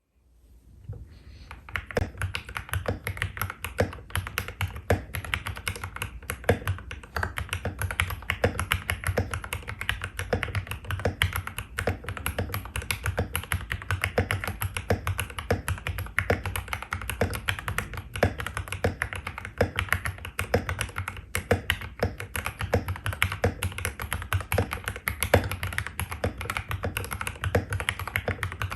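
Continuous fast typing on a Royal Kludge RK68 mechanical keyboard with stock Gateron Pro Red linear switches (45 g). The board has PBT keycaps on an aluminium plate and is damped with PCB foam, tape and band-aid mods. The keystrokes come as a dense, irregular run of clacks, fading in over the first second.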